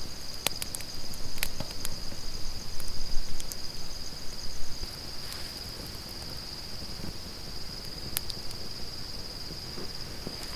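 A steady, high-pitched chorus of night insects trilling throughout, with a few sharp crackles from a small twig campfire. Low, irregular noise is louder during the first half.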